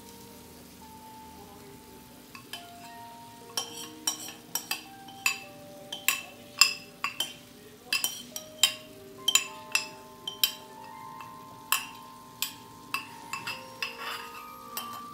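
Metal spoon clinking against a pot and frying pan as sauce is scooped and spooned over stir-fry vegetables: a run of sharp, irregular clinks starting about two seconds in, over soft background music with held notes.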